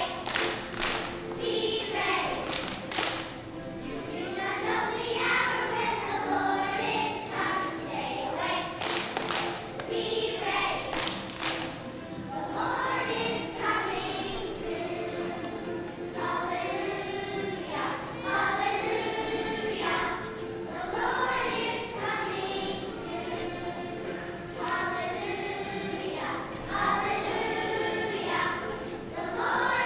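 A children's choir singing together, with several sharp knocks in the first dozen seconds.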